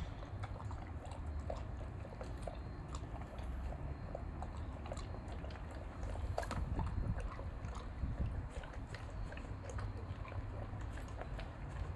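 German shepherd dog chewing and eating, with many small irregular crunching clicks over a low rumble.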